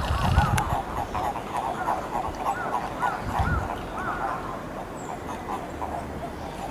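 Eastern Japanese common toads calling in a breeding pond: quick trains of short, repeated croaking notes, some rising and falling in pitch, thinning out after about four seconds. These are the males' spring breeding-season calls. A few low thumps come in the first second and again around three and a half seconds.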